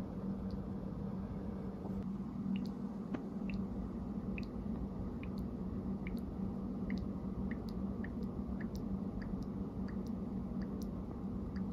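Tiny bubbles popping and fizzing as a chocolate gingerbread-man figure melts into a mug of milk, with scattered faint pops about one or two a second over a steady low hum.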